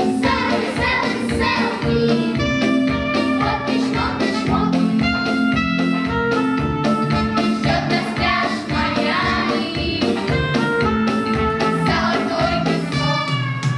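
Song with singing over a backing track that keeps a steady beat.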